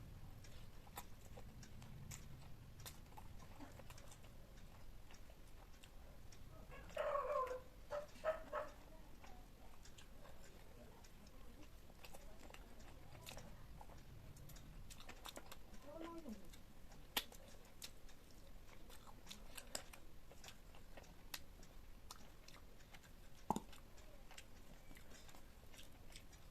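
Close-miked eating sounds: a person chewing food, with soft scattered mouth clicks. Brief louder sounds come about seven seconds and sixteen seconds in, and there is a sharp click near the end.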